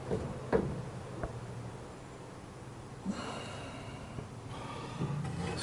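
A few faint knocks of something being handled, and a soft breath-like exhale about three seconds in.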